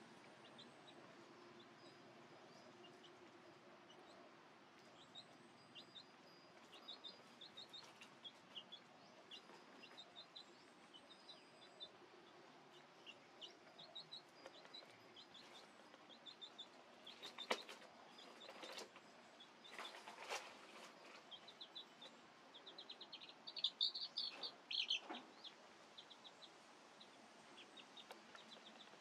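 Faint chirping of small birds in the background: short, high chirps coming on and off, busiest about a third of the way in and again late on, with a couple of sharp clicks in between.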